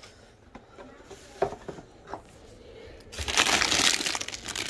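Plastic produce packaging crinkling and rustling as it is handled in a cardboard box, with a few soft knocks at first and loud crinkling starting about three seconds in.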